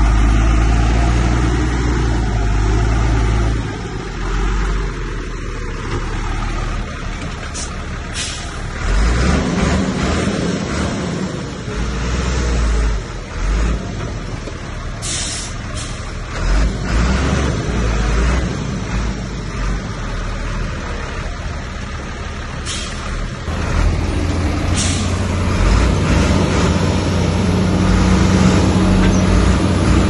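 Heavy diesel earthmoving machinery working: a big engine running with its load rising and falling, louder again over the last several seconds. Several short, sharp noises cut in over it.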